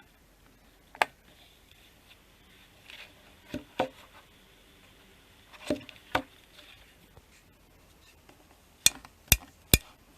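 Scattered light clicks and knocks of small hard objects being handled: single taps about a second in and pairs around four and six seconds in, then three sharp clicks in quick succession near the end.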